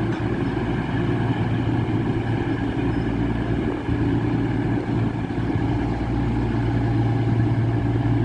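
Class 222 Meridian diesel multiple unit idling at the platform: a steady, even low engine hum.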